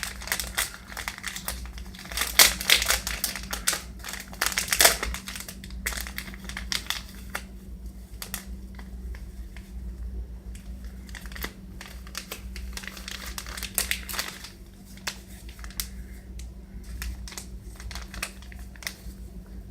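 Packaging crinkling and rustling in irregular bursts as it is handled and opened, loudest about two to five seconds in, over a steady low hum.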